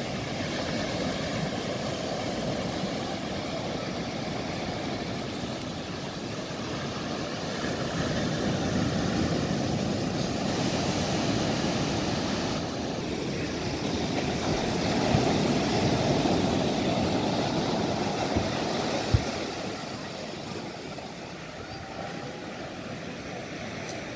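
Surf breaking and washing up the beach, a steady rush that swells and eases, with a couple of short low thumps in the second half.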